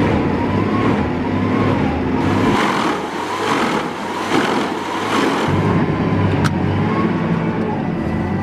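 A heavy wood-processing machine's engine running steadily. From about two and a half to five and a half seconds in, a harsh grinding noise comes in and the low engine note drops, as the machine works into wood.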